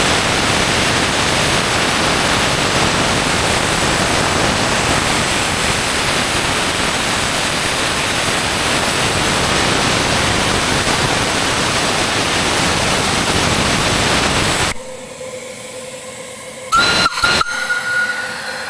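Holmes-type pop safety valves on a Romulus-type miniature steam locomotive blowing off: a loud, steady hiss of escaping steam as the boiler reaches full working pressure, cutting off suddenly about 15 seconds in as the valves reseat. A couple of sharp knocks follow near the end.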